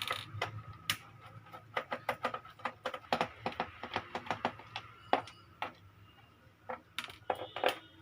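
Screwdriver undoing the screws on the back of a plastic computer keyboard: a run of small irregular clicks and taps.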